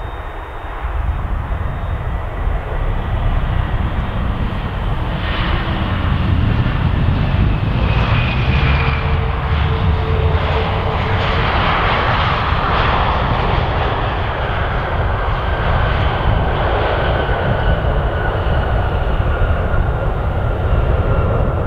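Ryanair Boeing 737 MAX 8's jet engines on the landing roll just after touchdown. A loud, steady jet roar grows over the first several seconds and then holds, with faint high whines slowly falling in pitch.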